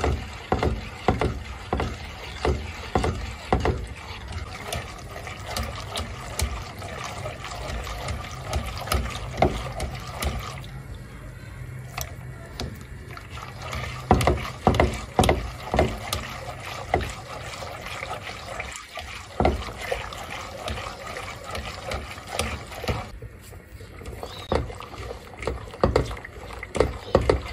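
A silicone-coated whisk stirring a milky mixture in a pot: liquid sloshing with frequent, irregular clicks and taps of the whisk against the pot, over a low steady hum.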